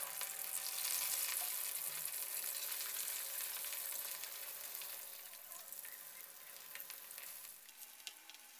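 Whole short mackerel deep-frying in hot oil in a wok: a steady sizzle that grows quieter over the last few seconds, with a few pops and crackles near the end.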